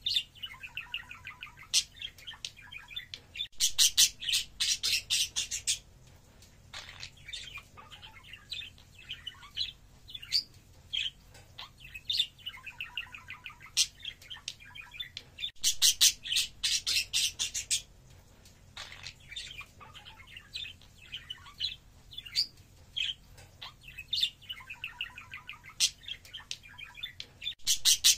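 Pet budgerigars chattering and warbling: a steady stream of soft, varied twitters, broken three times by loud runs of rapid, sharp chirps lasting about two seconds each.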